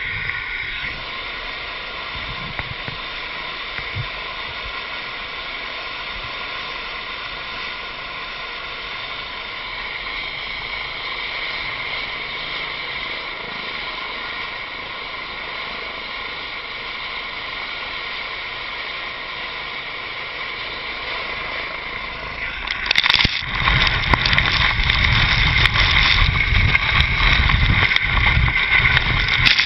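Rescue helicopter running on the snow with a steady turbine whine. About 23 seconds in, a loud, gusty rush of rotor wash and blowing snow hits the microphone as the helicopter powers up to lift off.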